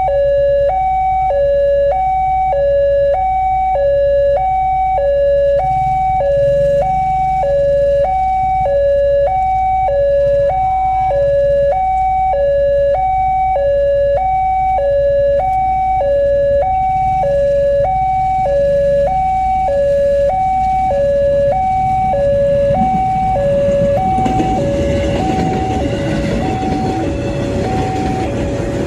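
Railway level-crossing warning alarm sounding a steady two-tone signal, a high and a low tone alternating about once a second. In the last few seconds an electric commuter train passes, its rumble and wheel noise rising under the alarm.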